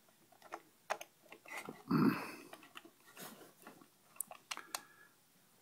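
Small plastic clicks of the buttons on a MindPlace Proteus mind machine being pressed, with light handling noise of the glasses and cable. A brief low grunt about two seconds in is the loudest sound.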